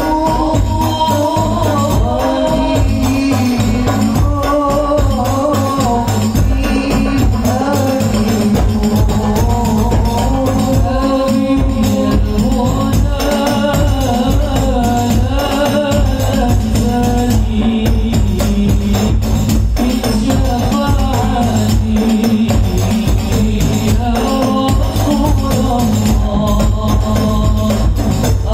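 Indonesian rebana ensemble of metal-bodied frame drums and large metal pot drums playing a steady, continuous rhythm, with a jingling rattle and men's voices singing a wavering melody over the drums.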